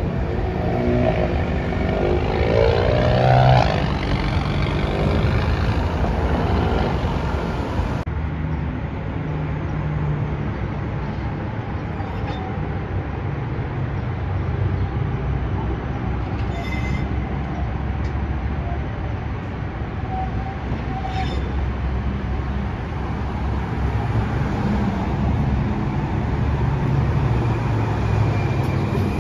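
Cincinnati Bell Connector electric streetcar passing through an intersection, with a wavering whine rising and falling over the first few seconds, above a steady low rumble of city traffic. After a cut, another streetcar runs toward the listener from a distance over the traffic rumble and is close by near the end.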